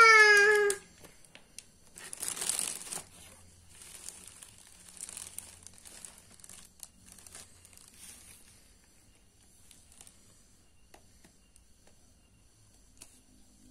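A high-pitched voice, falling in pitch, cuts off just under a second in. Then a thin clear plastic bag crinkles as it is handled, loudest around two seconds in, and fades to faint scattered crackles.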